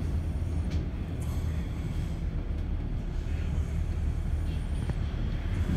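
Double-decker bus driving along, heard from the upper deck: a steady low rumble of engine and road noise.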